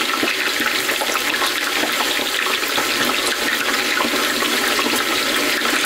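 Potato slices deep-frying in a large pot of hot canola oil: a steady, dense sizzle with fine crackling, from water on the fresh slices hitting the hot oil.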